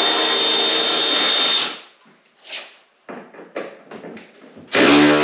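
Power drill running to back out Torx screws from a snowmobile's rear body panel. It whines steadily and stops about a second and a half in, a few light clicks of handling follow, and it starts again near the end.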